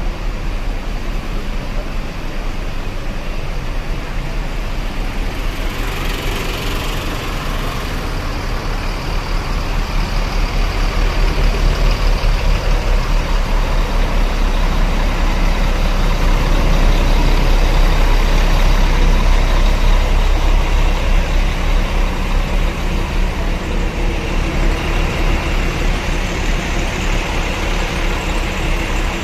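Large diesel bus engines running close by, a heavy low rumble that grows louder through the middle, with a brief hiss about six seconds in.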